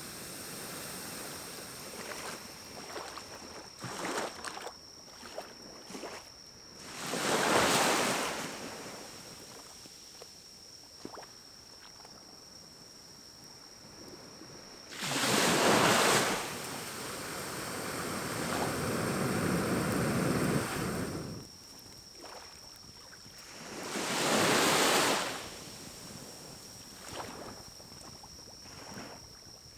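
Pine cones burning in a small wood-burning stove, crackling and popping, with three blasts of air blown through a pocket bellows blow pipe onto the fire: one about a quarter of the way in, one around the middle that carries on into a softer blow lasting several seconds, and one near the end.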